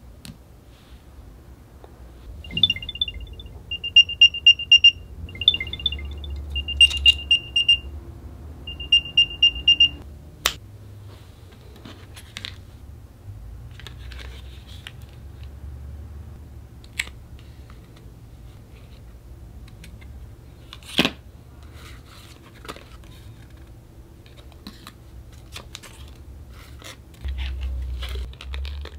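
Apple AirTag's small speaker chirping a rapid, high-pitched electronic beep melody in several short runs for about seven seconds, then stopping. After that come scattered sharp taps and clicks of plastic blister packaging being handled and opened.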